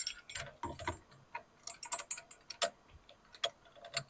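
Steering wheel puller and its bolts being set into the steering wheel: a dozen or more irregular, sharp metal clicks and taps.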